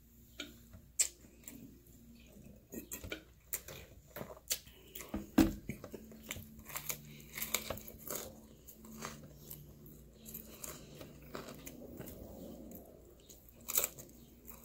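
Close-up eating sounds: pizza crust torn by hand and chewed, with irregular crunches and mouth clicks, and one louder thump about five seconds in.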